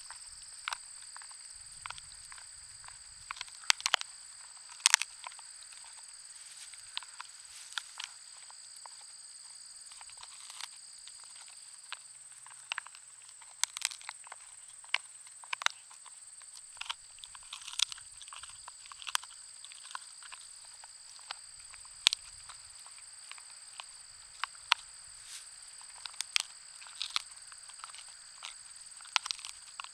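A Schnauzer–pug mix dog gnawing a bone: irregular sharp cracks and crunches, with a few louder snaps, over steady high-pitched tones.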